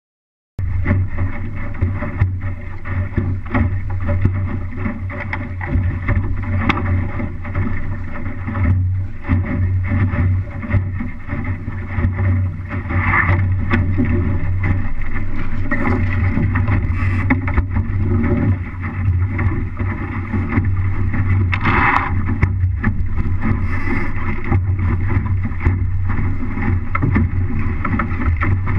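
Wind buffeting the camera microphone and water rushing and slapping along an MC-Scow sailboat's hull as it sails, with occasional sharper splashes. The sound cuts in abruptly about half a second in.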